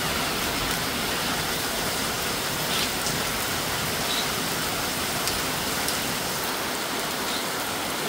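Heavy rain falling steadily, a dense even hiss with a few louder drops ticking now and then.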